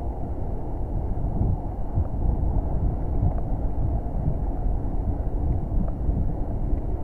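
Wind buffeting the microphone of a camera on a moving bicycle: a steady, fluttering low rumble with no distinct events.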